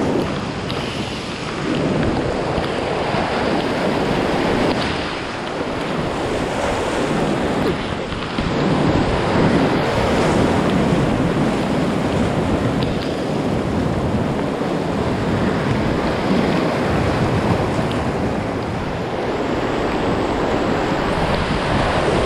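Whitewater rapids rushing and splashing around an inflatable kayak as it runs through them, the roar surging louder and softer every few seconds, with wind buffeting the microphone.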